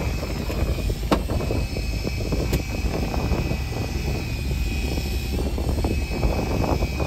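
Charter fishing boat's engine running steadily, a low rumble with wind on the microphone. Two sharp clicks come about one and two and a half seconds in.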